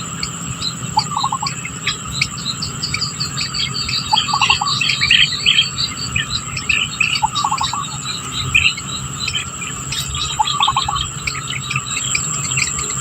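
Birds chirping and twittering over a steady high-pitched insect drone. A short run of three or four lower notes repeats about every three seconds.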